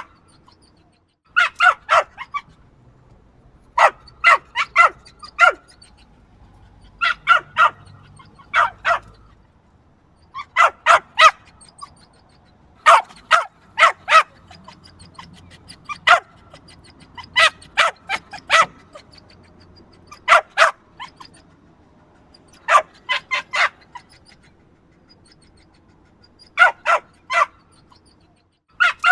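Small yappy dog barking in quick bursts of two to five sharp, high barks, a burst every two to three seconds.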